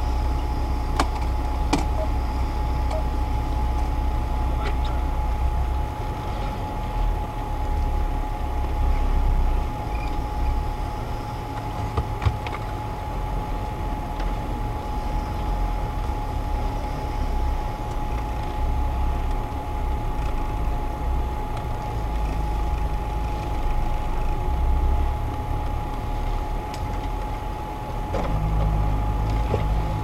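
Off-road vehicle's engine running at low speed, heard from the cab as it crawls over a rough snowy forest track, its rumble rising and easing in places. A steady thin whine runs underneath, with a few sharp knocks, the loudest about 12 seconds in.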